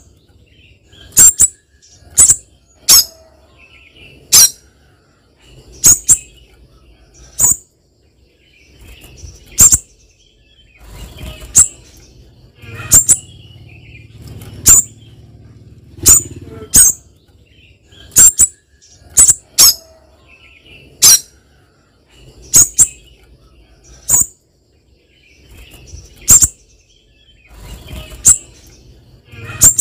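Spiderhunter giving short, sharp, very high call notes over and over, about one every second or so and often in quick pairs.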